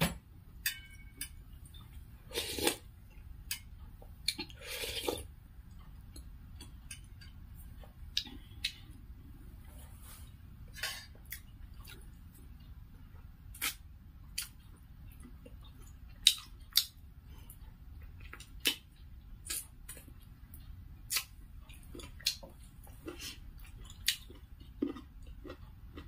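Close-up eating mouth sounds from someone eating millet dhedo and chicken soup by hand: irregular wet chewing clicks and lip smacks, with two longer slurps a few seconds in.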